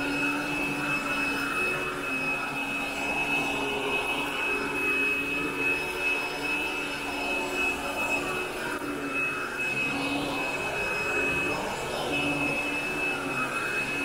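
Bagged upright vacuum cleaner running over carpet. It makes a steady high motor whine over a rush of air that swells and fades as it is pushed back and forth on repeat passes.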